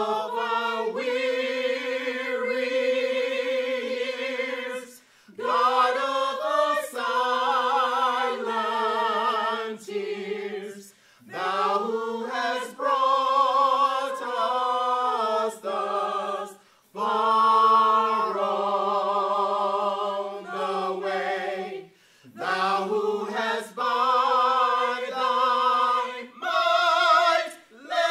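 Mixed choir of men and women singing a cappella, in phrases of long held notes with short breaks for breath about every five or six seconds.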